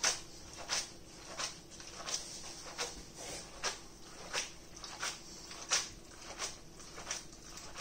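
Spaghetti carbonara being tossed in a stainless-steel frying pan: a short wet slap each time the pasta lands back in the pan, repeating evenly about three times every two seconds, as the egg and cheese are worked into a creamy sauce. A faint steady hum runs underneath.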